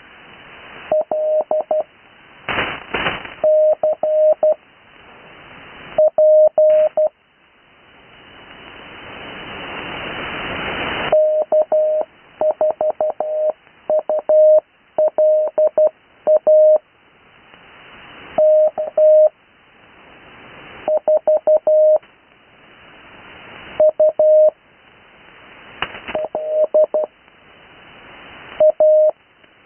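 Morse code call signs sent in CW and heard over an 80-metre amateur radio receiver: a single steady tone keyed in groups of dots and dashes with short pauses between. In the pauses, band noise hiss swells up, and there is a brief crackle about three seconds in.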